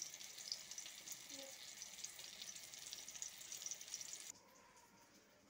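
Eggplant slices shallow-frying in oil in a pan: a soft, steady sizzle with fine crackles that cuts off abruptly about four seconds in.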